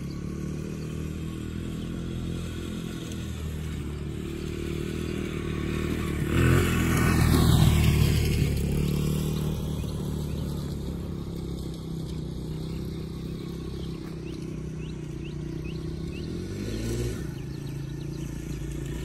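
A 2002 Honda XR100R dirt bike's small four-stroke single-cylinder engine running at low revs in a high gear, lugging with little throttle. It grows louder and falls in pitch as the bike passes close about six to nine seconds in, and the revs rise briefly near the end.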